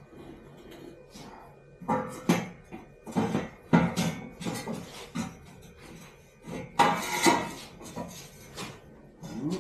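Metal tools and parts clanking and clattering in irregular knocks as work is done on a motorcycle, the loudest clanks about four seconds in and around seven seconds in.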